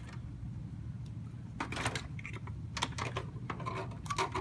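Small plastic clicks and taps of an L-shaped cable connector being handled and plugged into a CD drive, in a few short clusters, over a low steady hum.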